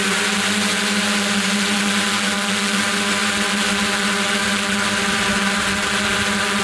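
Multirotor drone's motors and propellers humming steadily, a constant pitched buzz over a hiss.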